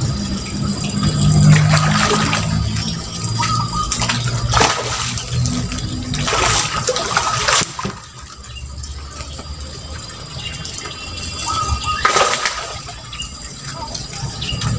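A hooked fish splashing and thrashing at the surface of a pond as it is played on the rod, in several separate splashes.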